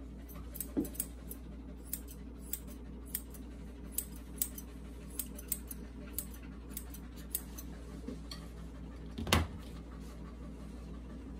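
Steel grooming scissors snipping through a toy poodle puppy's hair, a short crisp snip every half second or so, with one louder knock about nine seconds in. A steady low hum runs underneath.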